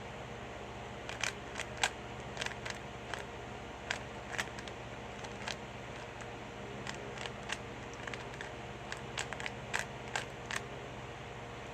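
Plastic clicking and clacking of a 3x3 Rubik's cube being turned fast during a speed solve, in irregular flurries of sharp clicks over a steady low hum.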